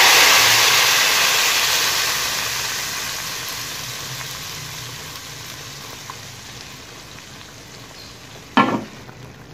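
A hot tadka of cumin seeds, green chillies and dried red chillies in oil, poured from an iron tawa into a pot of kadhi, sizzles loudly as it hits the curry. The sizzle then fades away slowly over several seconds.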